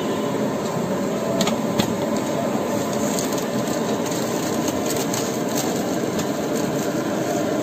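Steady din of a busy street, with a few light clicks and knocks as idlis are taken from a steel pot and laid on a foam plate.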